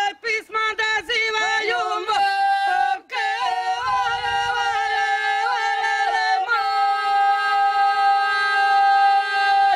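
Three women singing an ojkavica, unaccompanied Croatian folk singing with a piercing, shaken voice held in close harmony. Quick wavering ornaments come first, broken by a short breath gap about three seconds in, then a long held note from about two-thirds of the way in.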